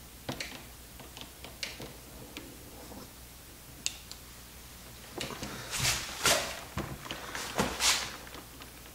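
Large steel hand-operated lug crimper being set around a copper cable lug: a few sharp metal clicks, then from about five seconds in a run of louder clunks and rattles as the tool is handled.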